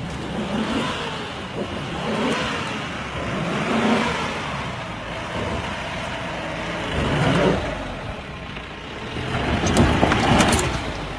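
Mahindra Scorpio and Mahindra Bolero SUV engines revving hard under load as the two vehicles pull against each other in a tug of war. The engine noise swells in surges about every three seconds.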